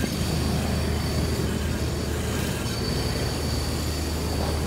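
A steady low mechanical rumble with a thin, high-pitched whine held over it, even in level throughout.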